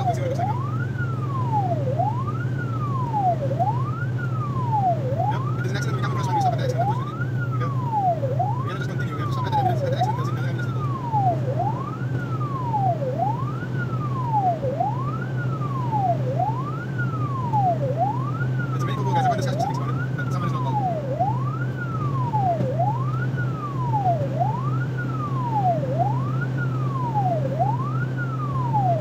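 Emergency vehicle siren on wail, its pitch sweeping up and down about every second and a half, over a steady engine and road drone inside the cab.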